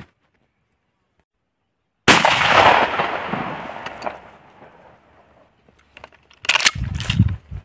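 A single shotgun shot from a Mossberg 590A1 pump-action, going off suddenly about two seconds in, its report echoing and dying away over about two seconds. Near the end come two short, loud clatters.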